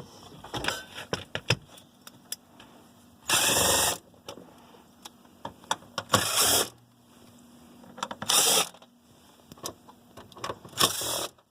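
Power driver with a T25 Torx bit running in four short bursts, backing screws out of a plastic dash panel, with small clicks and taps of the screws and panel between the bursts.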